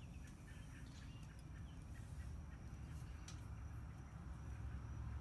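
Faint steady low hum, with a few soft clicks and taps from hands handling the exhaust parts and loose screws.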